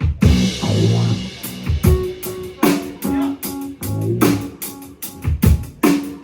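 Bass and drum kit playing a jazz-funk groove together: plucked bass notes over repeated kick and snare hits, with a cymbal wash ringing over the first second or so.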